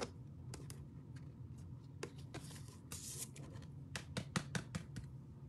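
Hands handling trading cards and a hard plastic card holder: faint scattered clicks and a couple of soft rustling swishes, with a quick run of sharper clicks about four seconds in.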